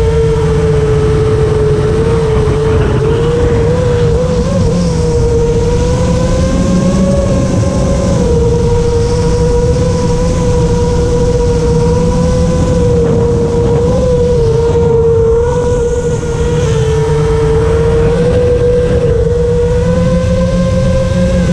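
Five-inch FPV quadcopter's four brushless motors (iFlight XING 2806.5 1300KV) whining at a fairly steady throttle, the pitch wavering and rising briefly with stick inputs, over heavy wind rumble on the onboard microphone. The motors run without the rough resonant noise that D_min had caused, D_min now being switched off in the tune.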